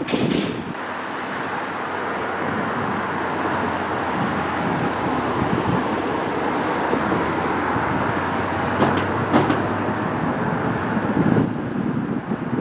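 Steady rumbling of a passing vehicle that builds over the first few seconds, holds, and drops off near the end, with two sharp clanks about nine seconds in.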